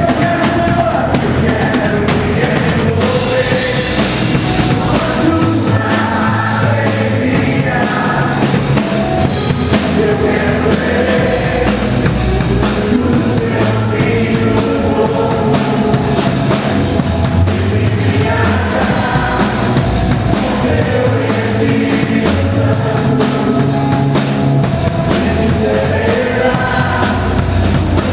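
Upbeat rock-style worship song, with a full drum kit driving a steady beat under a singing voice.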